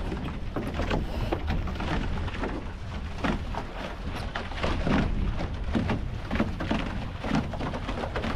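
Water splashing and slapping against the catamaran's hull in quick irregular bursts as the boat sails at speed, over a steady low rumble of wind on the microphone.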